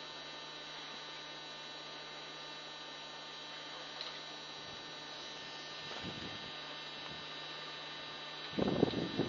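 Steady low electrical hum with faint hiss. About eight and a half seconds in, a brief cluster of louder rustling knocks.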